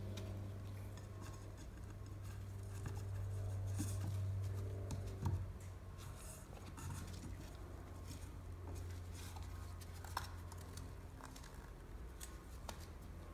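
Light clicks and taps of an oil filter housing cap and small parts being handled on a workbench while its rubber O-rings are changed, over a steady low hum.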